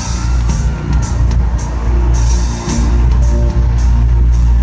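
Live rock band playing loudly through an arena sound system, recorded on a phone from the stands: booming bass and drums with cymbals and guitar.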